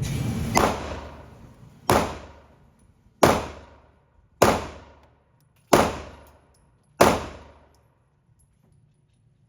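Six gunshots fired one at a time, about a second and a quarter apart, each cracking sharply and then ringing out briefly in the indoor range.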